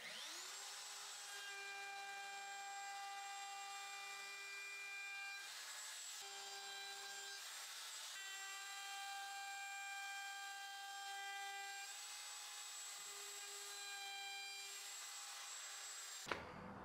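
DeWalt router with a round-over bit spinning up, then running at a steady whine as it rounds over the edge of a cherry board. The sound cuts off abruptly near the end.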